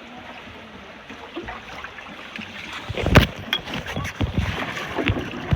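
Kayak paddle strokes in calm lagoon water: a soft wash of water at first, then a run of sharp paddle splashes starting about three seconds in, the first the loudest.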